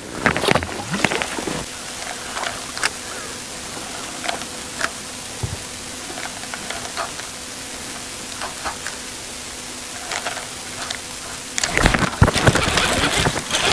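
Wind and water noise on an open lake, with a faint steady hum and scattered small ticks. About twelve seconds in, a heavier low rumble of wind on the microphone takes over.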